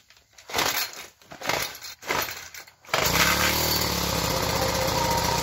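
Gas string trimmer being pull-started: a few quick rope pulls, then the small engine catches about three seconds in and runs steadily.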